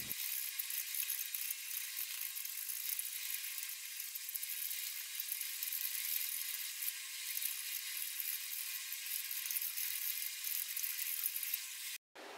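Drill bit boring a hole into the end of a wooden handle block: a steady, thin, high whirring hiss of cutting that cuts off suddenly near the end.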